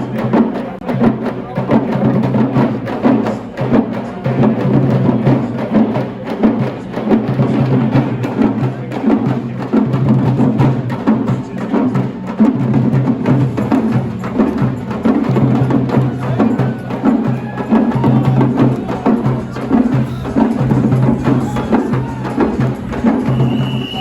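Background music with drums and a steady, driving beat over a sustained bass line.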